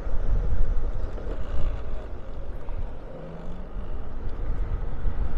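Low, steady rumble of wind on the microphone with engine and road noise from a vehicle driving slowly through town traffic.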